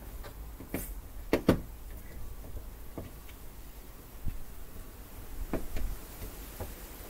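Scattered sharp clicks and knocks of hands working wiring and parts into an outdoor electrical outlet box, the loudest a close pair about a second and a half in. Wind rumbles on the microphone underneath.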